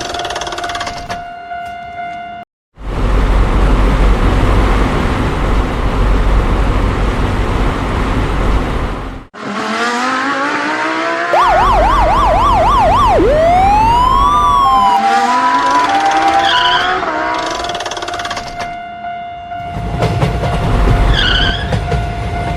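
Edited sound effects of a cartoon railroad crossing: a steady tone that cuts off abruptly, several seconds of loud rumbling noise like a passing train, then a fast up-and-down siren wail, rising and falling whistle-like glides and a few short beeps, before the steady tone comes back near the end.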